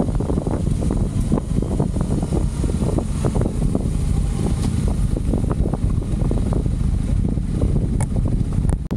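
Motorcycle riding along a gravel track: wind buffeting the microphone over a steady low rumble of engine and tyres, with many short knocks and rattles from the rough surface.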